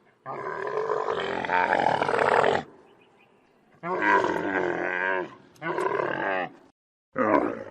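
Camel calling in four separate calls: one long call of over two seconds, then two shorter ones and a brief one near the end.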